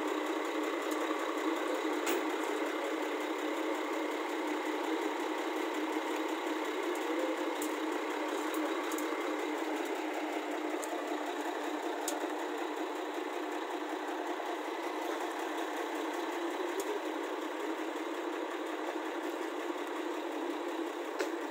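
Heavy diesel engine idling steadily, with a few faint clicks.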